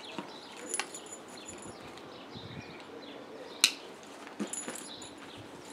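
Rustling and several sharp clicks as the straps, buckles and pouch of a nylon backpack are handled and fastened; the loudest click comes about three and a half seconds in. Birds chirp faintly in the background.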